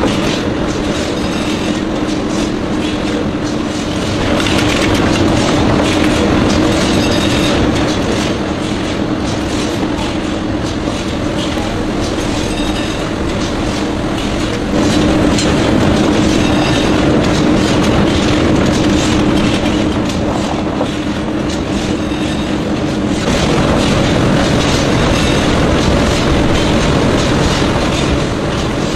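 Matchstick-making machine running, a loud continuous rattling clatter of its rollers and splint-carrying slats over a steady low tone. The loudness shifts up and down in steps a few times.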